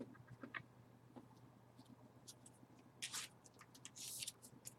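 Faint handling of trading cards: a few light clicks, then two brief rustles about three and four seconds in as cards are slid and turned over.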